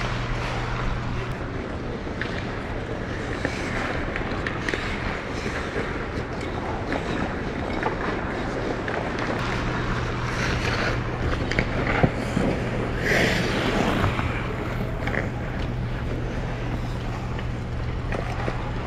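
Ice skates gliding and scraping across rink ice: a steady rush of noise with scattered clicks of blades, one sharper click about twelve seconds in. A low hum drops out about a second in and returns about ten seconds in.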